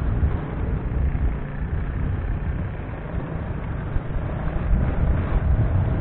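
Wind rumbling on the microphone of a moving vehicle, mixed with road and traffic noise; steady throughout.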